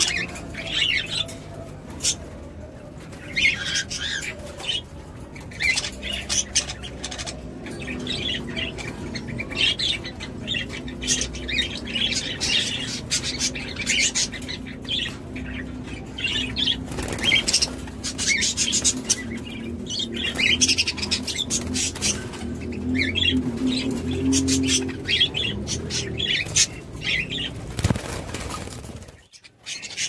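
A cage of budgerigars fluttering and flapping their wings, with frequent quick wingbeats, amid their high chirping chatter.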